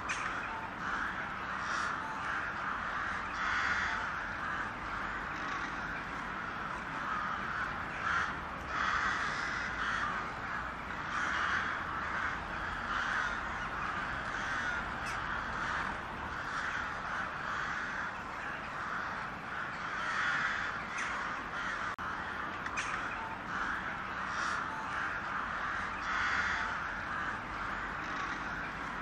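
A flock of crows cawing together, a dense continuous chorus of overlapping calls that swells and fades.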